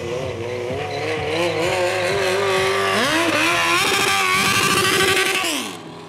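Stunt motorcycle engine revving hard. Its pitch wavers, climbs sharply about halfway through, holds high, then drops away and fades near the end.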